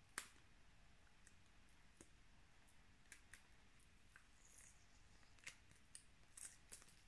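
Faint, irregular clicks and small crackles of a clear plastic case being handled and opened to get at a makeup sponge.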